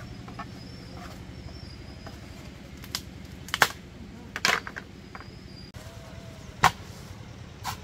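A steady low hum, like a motor running, with about five sharp knocks at uneven intervals; the loudest come a few seconds in and again near the end.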